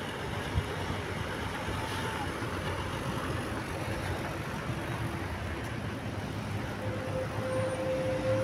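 Steady roadside traffic noise with the low rumble of heavy vehicle engines. There is a short knock about half a second in, and a faint steady tone comes in near the end.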